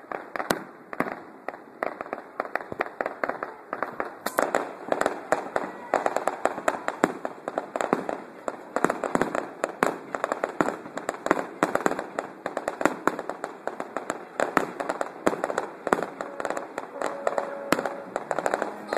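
Fireworks crackling and popping in a dense, unbroken barrage, several sharp bangs a second.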